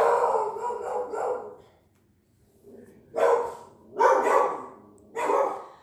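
A dog barking: a longer stretch of barking at the start, then three separate barks spaced about a second apart.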